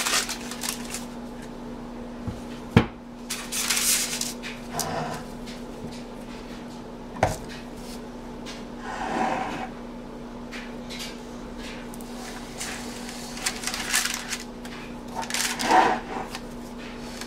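Handling sounds while a cold process soap loaf and its paper liner are moved and positioned on a soap log splitter's tray: paper rustling, the loaf sliding, and a couple of sharp knocks, about 3 and 7 seconds in. A steady low hum runs underneath.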